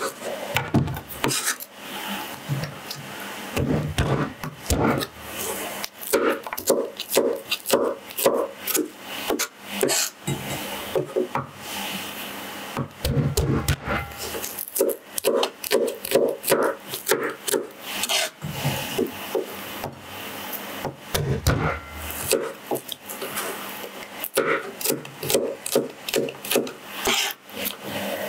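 Chef's knife chopping garlic on a cutting board: runs of quick knocks of the blade on the board, a few a second, with the cloves being handled and scraped between the runs.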